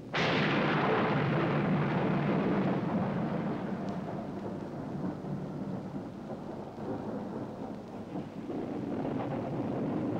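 A sudden crack of thunder that rolls on as a long, fading rumble, swelling again slightly near the end.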